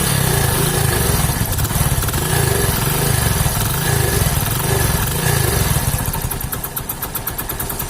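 Hero HF Deluxe's 100 cc single-cylinder four-stroke engine idling with a rough, train-like clatter from inside, its note swelling and falling about once a second; it is a little quieter from about six seconds in. The noise comes from a cut head gasket leaking compression and a damaged piston crown.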